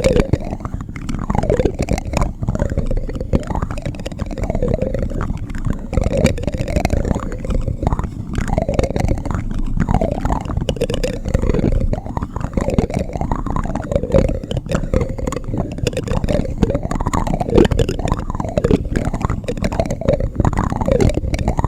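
A spoon being scraped and rubbed in slow, repeated strokes, over a steady deep rumble.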